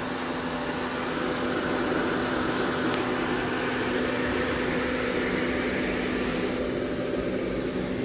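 Steady hum of a vertical machining center's electrical cabinet cooling: the panel air-conditioning unit and fans running, with a constant low tone under an even whir.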